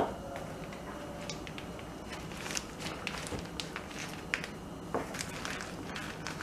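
Faint crinkling and scattered small clicks of a plastic piping bag filled with whipped cream as it is gripped and squeezed, with a sharper click at the start.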